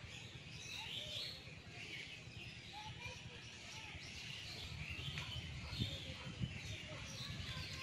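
Several birds chirping and calling over a steady low rumble, with two brief soft knocks about six seconds in.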